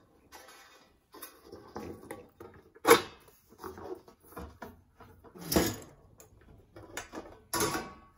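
Handling noise of a large sheet-metal ceiling fan pan and its light fixture being moved and turned over on a wooden table: rustling and scraping with several knocks and clanks, the sharpest about three seconds in and two more later.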